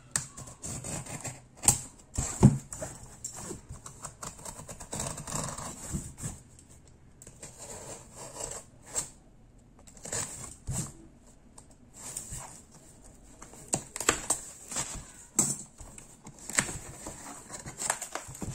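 A utility knife cutting the packing tape on a small cardboard box, and the box being handled and its flaps pulled open: many irregular clicks and short scrapes with cardboard rustling between them.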